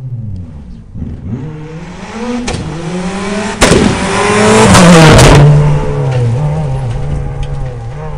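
Rally car engine revving hard, its pitch climbing twice through a gear change as it approaches. It is loudest for about two seconds as it passes close by, then settles to a lower, steadier note.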